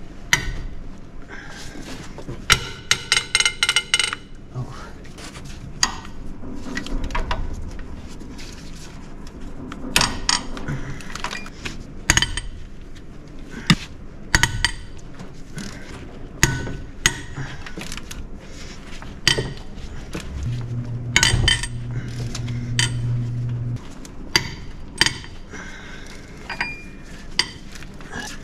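Cylinder head bolts on a Ford 5.4L SOHC Triton V8 being cracked loose with a breaker bar: a long series of sharp cracks and creaks as the very tight bolts break free from their threads, which is normal. There is a quick run of metallic clicks about three seconds in and a low steady groan lasting about three seconds about two-thirds of the way through.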